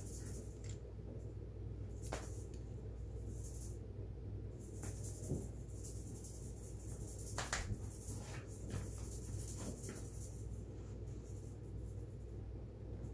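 A harnessed cat shuffling and crawling on a thick rug, with a few soft scratches and rustles over a steady low room hum.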